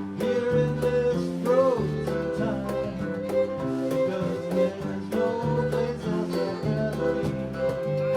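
Live acoustic country-bluegrass band playing: guitars, fiddle, bass and percussion, with singing.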